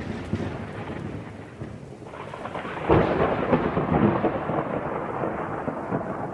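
Thunderstorm: rain falling steadily with rolling thunder, and a fresh thunderclap breaking about three seconds in and rumbling on.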